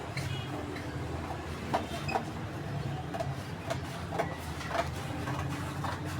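Parcel being packed by hand: scattered light knocks, clicks and rustles of cardboard and packing material being handled and cut, over a steady low hum.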